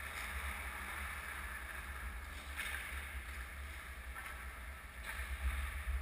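Indoor ice rink ambience: a steady low rumble with a hiss over it, and a few faint knocks from play at the far end of the ice.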